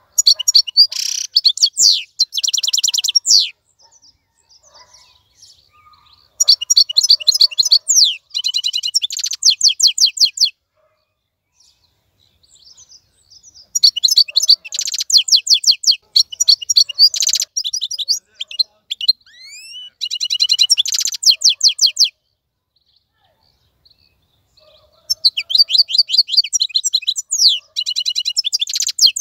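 Wild-caught European goldfinch singing: four bouts of rapid, high twittering trills, each lasting a few seconds, with pauses of a few seconds between them.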